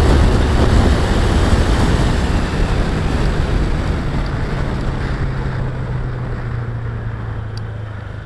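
Wind rushing over a scooter-mounted camera with the Honda PCX150 scooter's engine underneath, fading steadily as the scooter slows. A steady low engine hum is left in the second half.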